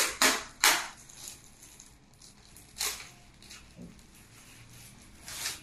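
Clear plastic wrapping on a new laptop crinkling and rustling as the seal is peeled and the bag pulled open: a handful of sharp crinkles, loudest in the first second, with another about three seconds in and one near the end.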